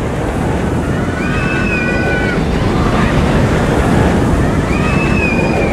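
Roller coaster train running fast along steel track with a steady rushing roar, with two long high-pitched screams from riders, one about a second in and one near the end.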